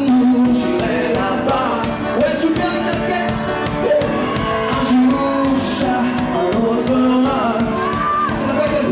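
A rock band playing with a singer over a steady drum beat, with regularly spaced cymbal strikes.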